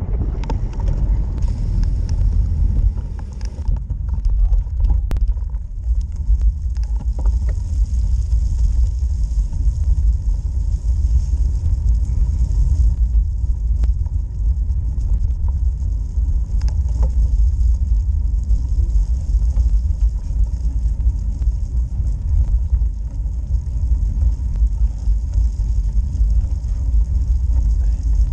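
Steady, heavy low rumble of wind buffeting and road vibration on a GoPro mounted on a road bike riding uphill, with a faint steady hiss and a few light clicks.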